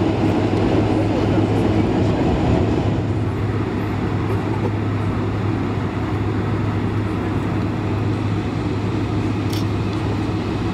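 Cabin noise of a Boeing 747-400 taxiing, heard from a seat over the wing: a steady low engine hum and rumble, easing slightly about three seconds in.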